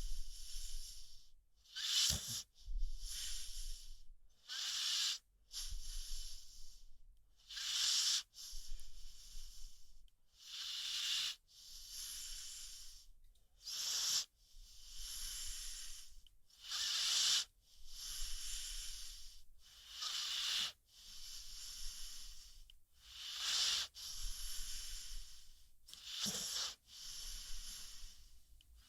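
American Pit Bull Terrier snoring in its sleep: airy, hissing breaths that repeat about every three seconds.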